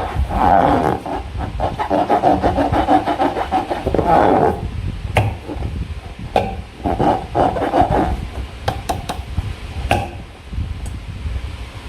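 Slime and a rubber balloon being handled: bouts of rubbing and squishing, with many sharp clicks and snaps scattered through.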